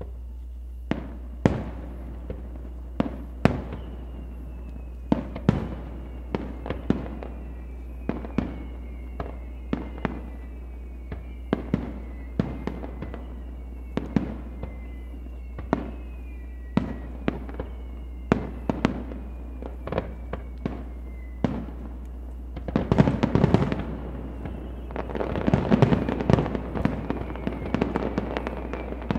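Aerial fireworks bursting: a string of sharp bangs about one a second, with several falling whistles. Near the end come two stretches of dense crackling as bigger clusters of shells go off.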